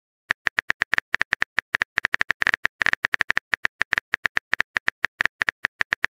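Simulated phone-keyboard typing clicks from a chat-story app, a quick, uneven patter of short clicks at about seven a second as a message is typed out letter by letter.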